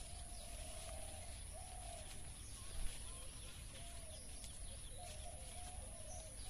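Faint bird calls: short, wavering, fairly low-pitched calls repeating every second or so over a steady high hiss, with one brief knock nearly three seconds in.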